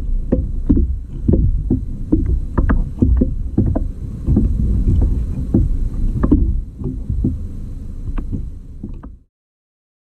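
Water sloshing and slapping against a kayak on the sea, with irregular knocks and splashes at the hull. The sound cuts off suddenly near the end.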